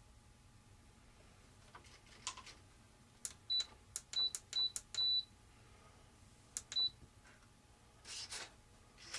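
Short high electronic beeps from RC radio gear being powered up and set: four quick beeps, the last one longer, then one more after a pause, mixed with light clicks.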